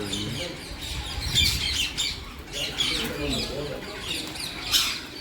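A large flock of rose-ringed parakeets calling, many shrill squawks and chirps overlapping, with the loudest calls about a second and a half in and near the end.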